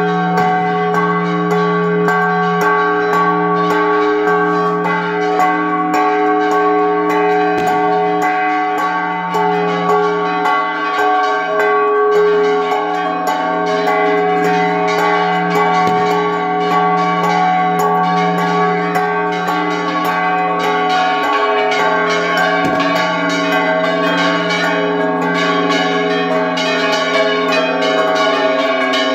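Church bells pealing a repique from close by in the belfry: several bronze bells struck in quick succession, their ringing tones overlapping into one continuous, dense clangour.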